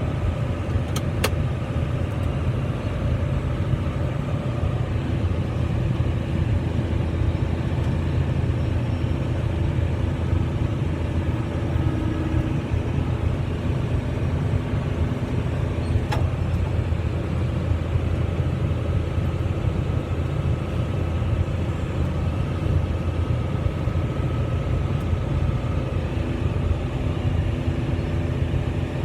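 John Deere 9220 four-wheel-drive tractor's diesel engine running steadily, heard from inside the cab. A couple of short clicks come through, one about a second in and one about halfway.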